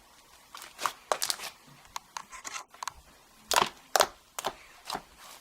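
Hands squeezing and stretching a yellow slime with foam beads in it, making irregular sticky clicks and pops that come in two busy clusters, about a second in and again past the middle.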